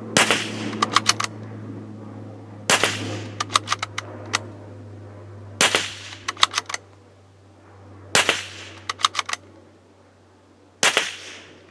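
Springfield Armory Model 2020 Rimfire bolt-action .22 LR rifle fired five times, about every two and a half to three seconds, each sharp crack followed by a quick run of metallic clicks as the bolt is worked to chamber the next round.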